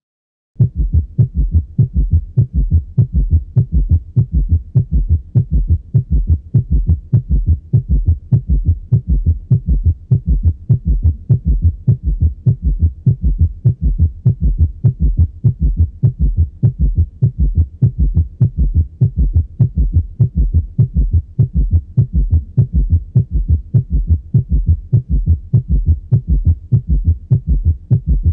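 Recorded heart sounds, as heard through a stethoscope: a rapid, regular heartbeat with low, dull beats following each other steadily.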